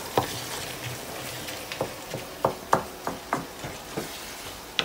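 Minced pork sizzling in a frying pan while a wooden spatula stirs it, with quick irregular knocks and scrapes of the spatula against the pan, about two a second.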